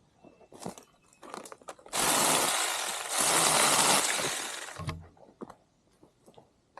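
Twigs and brush snapping and crackling, then a 6-inch battery-powered mini chainsaw cutting through brush in two loud stretches for about three seconds, from about two seconds in.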